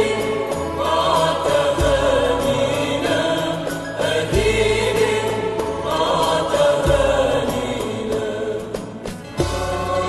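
Background music: a choir singing a hymn over a low, sustained bass accompaniment, with a short dip in level near the end.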